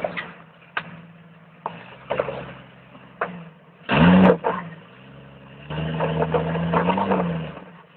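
Jeep Cherokee XJ's engine working under load on a steep rock climb, with a few sharp knocks, a short loud burst of throttle about four seconds in and a longer rev near the end.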